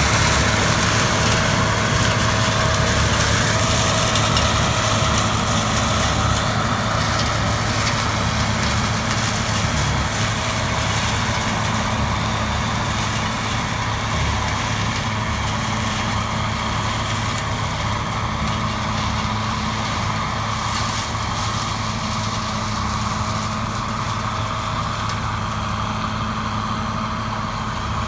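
Large engine running steadily with a low hum, slowly growing a little quieter.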